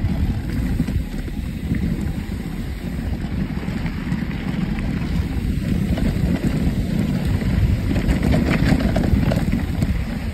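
Wind buffeting the microphone of a mountain bike rider in motion, a steady low rumble, with the crackle of tyres rolling over loose dirt and gravel that gets busier near the end.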